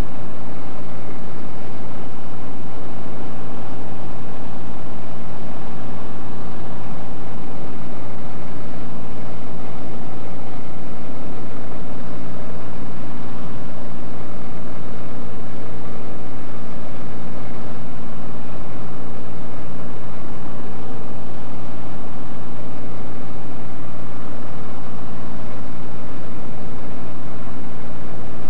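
Light aircraft's engine and propeller running steadily in cruise, heard loud from inside the cabin as a constant low-pitched drone.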